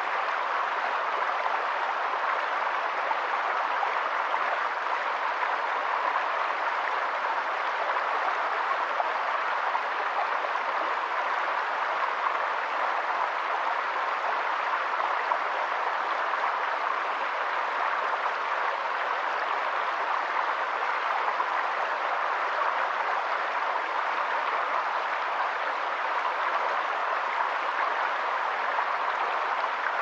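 Shallow rocky stream flowing over small cascades: a steady, even water noise that does not change.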